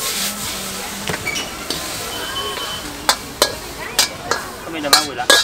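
Stir-fried noodles sizzling in a wok, with a metal ladle clanking against the wok several times as they are tossed and scraped out, the clanks coming more often in the last couple of seconds.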